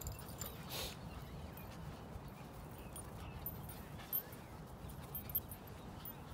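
Two dogs play-fighting, a Staffordshire bull terrier–Rhodesian Ridgeback cross and a cockapoo puppy, giving faint short whines and yips over a steady low rumble.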